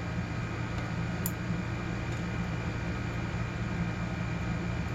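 Steady low hum of room background noise, with a faint sharp tick a little over a second in and a few fainter ticks.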